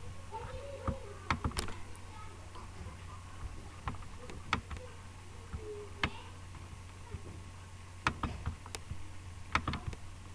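Computer mouse clicking, about ten separate sharp clicks at irregular intervals, over a steady low hum.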